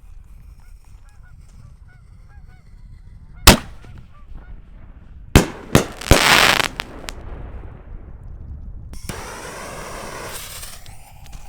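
7-inch triple-break firework canister shell: one loud report, then about two seconds later three sharp reports in quick succession, the last trailing off into crackle and hiss. A further burst of hiss comes near the end.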